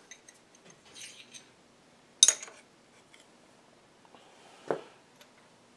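Small metal clinks and knocks as a steel bar is handled at a milling machine vise: a sharp clink about two seconds in, and a duller knock later.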